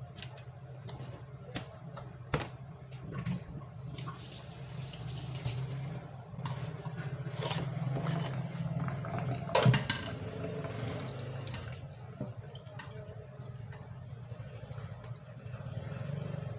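Grated green papaya being squeezed by hand in salted water in an aluminium pot, with water sloshing and dripping and small knocks. A loud knock comes about two thirds of the way through, and near the end the brine is poured off through a mesh strainer into a stainless steel sink. A steady low hum runs underneath.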